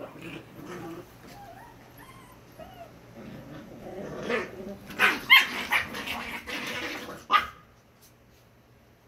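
Corgi puppies giving small whimpering calls, then a burst of sharp, high-pitched yips and barks from about four seconds in, the loudest near five and seven seconds, before they fall quiet near the end.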